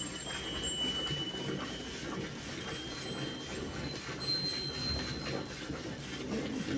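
Hand-milking of a Holstein Friesian cow: streams of milk squirting one after another into a steel pail.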